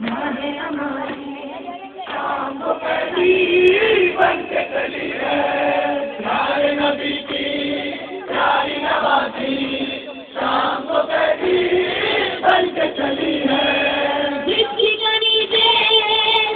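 Several voices chanting a noha, an Urdu Shia lament, in chorus as a live recitation.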